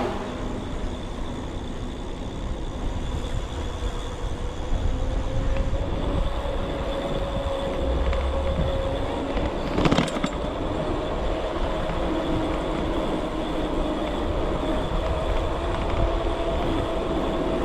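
1000 W rear hub motor of an e-bike whining, a steady tone that climbs slowly in pitch as the bike speeds up, over a constant low rumble from riding. There is one sharp knock about ten seconds in.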